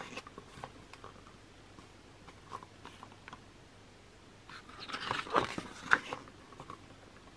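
Glossy pages of an album photobook being turned and pressed flat by hand: a rustling paper swish a little past halfway through, with a few faint paper taps before and after.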